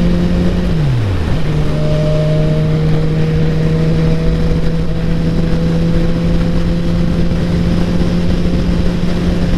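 Motorcycle engine running at steady riding revs over a wide rush of wind and road noise. About a second in, the engine note drops sharply, then comes straight back up and holds steady.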